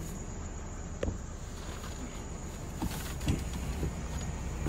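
Insects trilling with one steady high note, and a few soft footfalls on grass; a sharp click sounds about a second in.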